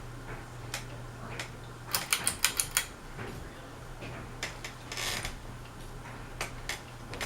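Westinghouse Apollo Elite ceiling fan running on medium speed with a steady low hum, broken by a quick run of clicks about two seconds in and a few scattered single clicks.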